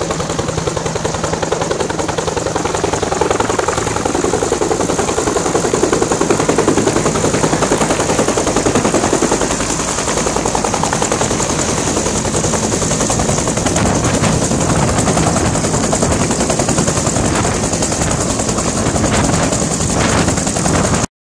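Bell UH-1 Huey helicopter hovering low and settling onto its skids, its two-bladed main rotor beating in a fast, steady chop over the running turboshaft engine. The sound cuts off abruptly near the end.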